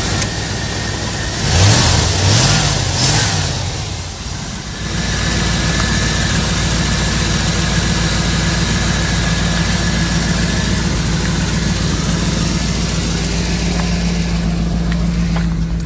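1992 Chevrolet Camaro Z28's tuned-port-injected V8 running on its newly installed distributor cap, rotor, ignition coil and ignition module. The throttle is blipped three quick times about two seconds in, then the engine settles back to a steady idle.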